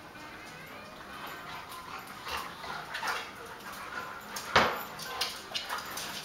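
Dogs (labradoodle, Belgian Malinois and lab-weimaraner mix) play-fighting on a tile floor: scuffling, claws clicking and short whimpers and yips, with one sharp, loud sound about four and a half seconds in.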